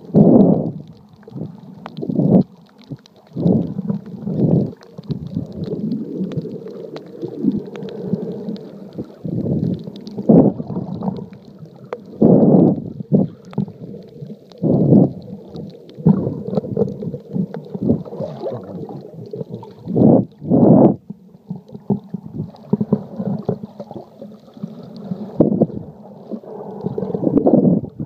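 Muffled underwater sloshing and rumbling picked up by a phone sealed in a waterproof case, with irregular louder surges every few seconds as the phone moves through the water.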